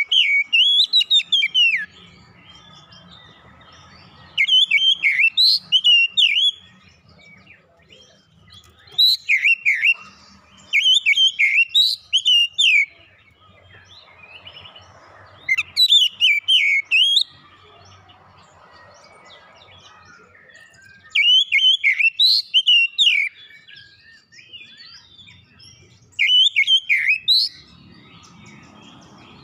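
Oriental magpie-robin singing loud phrases of fast, varied whistled notes, each phrase one to two seconds long, repeated every few seconds with short pauses between.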